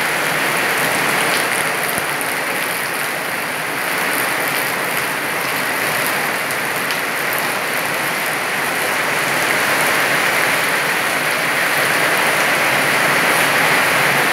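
Very heavy rain falling steadily: the dense, even hiss of a downpour on leaves, plant pots and the ground.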